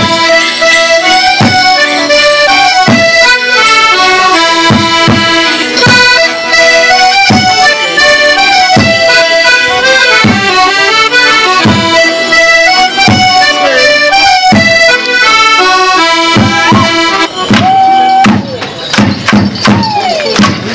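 Border morris band music: accordions playing a lively folk tune with a bass drum beating time. About three seconds from the end the tune stops and is followed by a fast run of sharp wooden knocks, the dancers' sticks clacking together.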